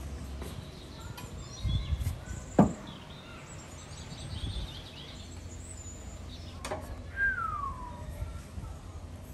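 Outdoor ambience with birds chirping, including one clear falling whistle near the end. A sharp knock comes about two and a half seconds in, and a clack about seven seconds in as the tandoor's metal lid is lifted off.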